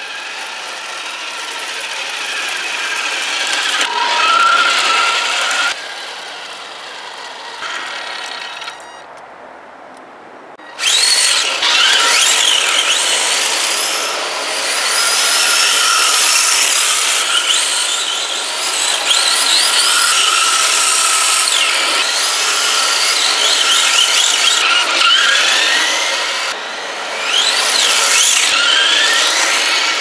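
HPI E10 radio-controlled drift car's 19-turn electric motor whining, rising and falling in pitch with the throttle, while its tyres squeal and scrub on the pavement as it slides. The sound drops away for about two seconds a little before the tenth second, then comes back loud.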